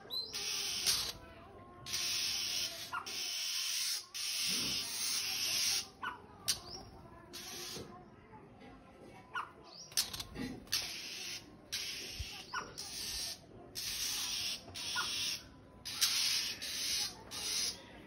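A small bird's harsh rasping alarm calls, repeated every second or so with short chirps between them, as it mobs a rat snake at its nest.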